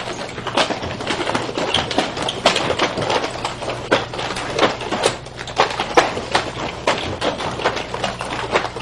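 Nunchaku being swung through continuous hand and hip switches: an irregular run of clicks and slaps, a few a second, as the chain rattles and the handles strike and land in the hands.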